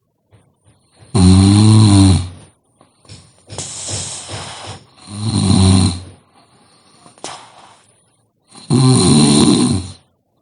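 A sleeping person snoring loudly during a nap: three long snores about one, five and nine seconds in, with a quieter breathy exhale between the first two.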